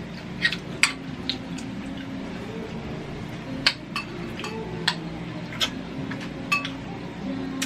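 Cutlery clinking against plates and dishes while eating, with about ten sharp, separate clinks at irregular intervals.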